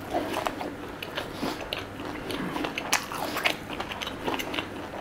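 A person chewing and biting fried food close to the microphone, with irregular sharp crunches.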